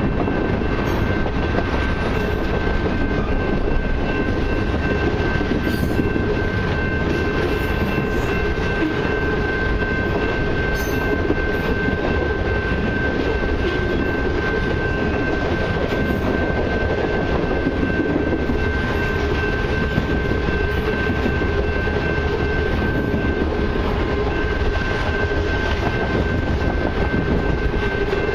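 Long freight train of autorack, mixed and intermodal cars rolling past: a steady rumble of steel wheels on the rails, with a steady high-pitched ringing tone over it.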